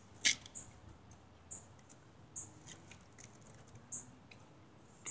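Faint wet clicks and smacks of bubble gum being chewed and worked into a bubble, with a sharper click about a quarter second in.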